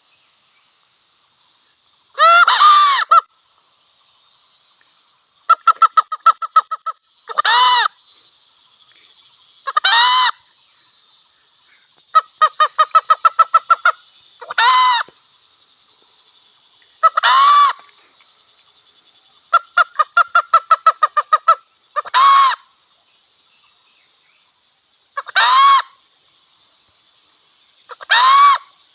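A hen cackling: runs of quick, even clucks, each breaking into a loud drawn-out 'ba-gawk', with more single loud calls every two to three seconds between them.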